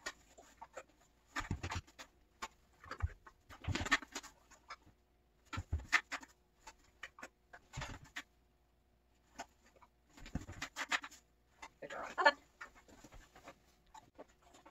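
A dog's paws and nails stepping and shifting on a plastic step platform and inflatable spiked balance discs: short scuffs and clicks in clusters every couple of seconds, with quiet in between.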